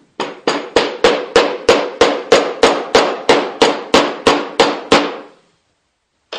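Metal parts of a waterjet rotary joint being tapped: about sixteen even metal-on-metal strikes, roughly three a second, each ringing briefly, stopping about five seconds in.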